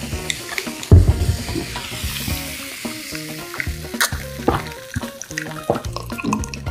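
Freshly poured cola fizzing over ice in a glass, a steady crackling hiss, with a loud thud about a second in and a sharp click a few seconds later.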